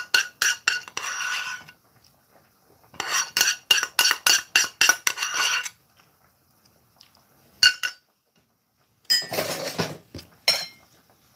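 Metal spoon scraping and tapping against a non-stick frying pan: quick runs of ringing clinks in three bursts, with a single clink between the second and third. The last burst is rougher, mixed with duller handling knocks.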